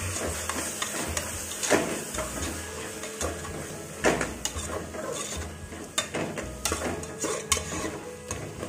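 Slotted metal spoon stirring and scraping fenugreek leaves and onion paste around an aluminium pressure cooker, clinking against the pot, with a few sharper knocks, over the sizzle of the frying greens.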